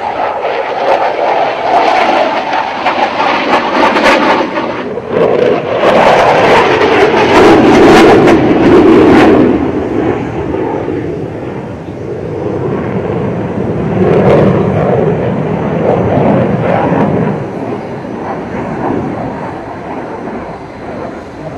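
Jet noise from a JF-17 Thunder fighter's single RD-93 turbofan during a low flying display. The rushing roar swells to its loudest about six to nine seconds in as the jet passes, eases, rises again for a few seconds later on, then fades.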